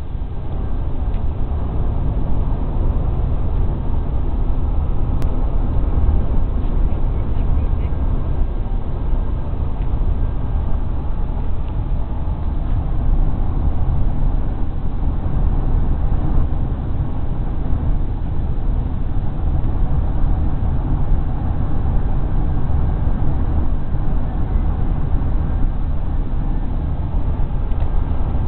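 Steady low rumble of road and engine noise heard inside a moving vehicle's cabin.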